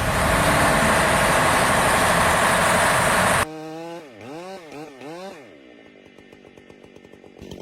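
Chainsaw running loud at full throttle, cut off abruptly about three and a half seconds in. A quieter small engine then revs up and down about three times and settles to a low, ticking idle.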